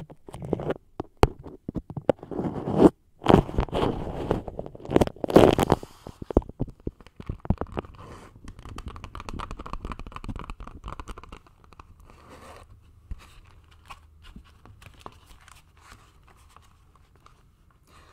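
Beeswax food wrap crinkled and rubbed right on a microphone: loud, close crinkling and crackling with sharp clicks for about the first six seconds, then softer rustling that fades to faint, scattered crackles.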